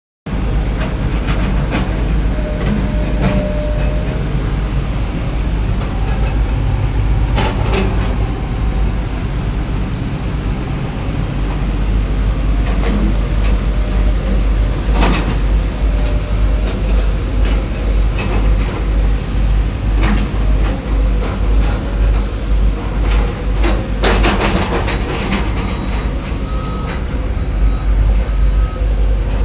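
Hydraulic excavator's diesel engine running steadily with a heavy low rumble, punctuated by occasional sharp clanks and knocks.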